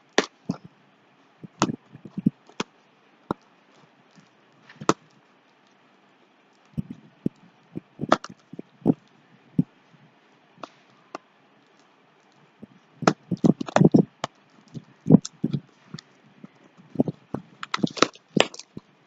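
Cardboard product box being opened and handled by hand: scattered sharp clicks and knocks of cardboard with quiet gaps between, coming thicker about two-thirds of the way through and again near the end.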